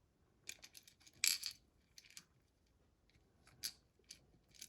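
Small metal clicks and clinks of a pin tumbler lock's parts being handled, a few separate taps with the loudest about a second in.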